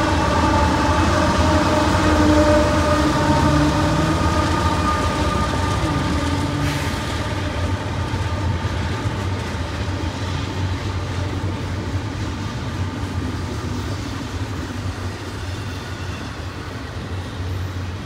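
Union Pacific diesel locomotives passing and pulling away, their several steady tones fading out over the first six seconds or so, followed by the steady low rumble of double-stack container well cars rolling by on the rails, slowly getting quieter.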